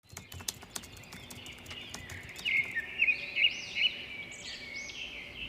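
Birds chirping: a run of short, high, arched calls that repeat and overlap from about two seconds in, after a few sharp clicks at the start.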